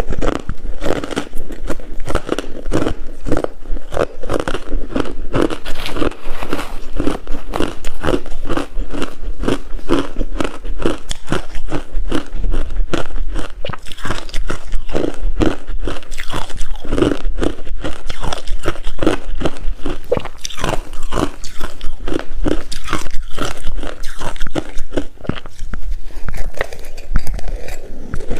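Close-up crunching and chewing of coarse, brittle ice in the mouth: a rapid, continuous run of loud crisp cracks and crunches, bite after bite.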